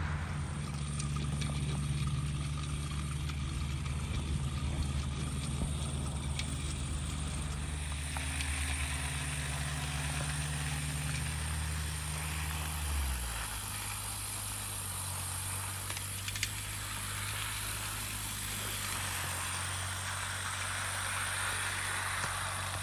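Model locomotive running along garden railway track: a low steady mechanical hum with a few faint clicks. The hum changes pitch about thirteen seconds in, when a second locomotive is heard.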